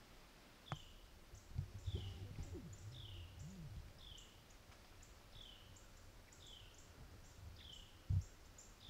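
A bird calling over and over, a short falling note about once a second with fainter high ticks between. A few soft low thumps come through, the loudest near the end.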